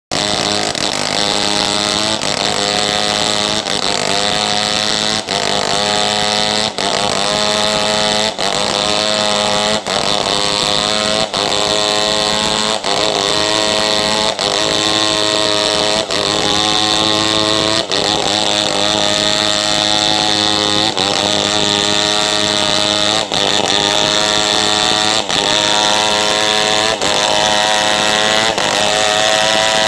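Chainsaw engine running at high revs, its pitch dipping and climbing back about every second and a half.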